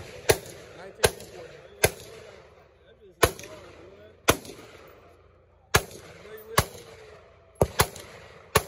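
Gunshots on a shooting range: about ten single shots at irregular intervals, each a sharp crack with a short echo, two of them in quick succession late on.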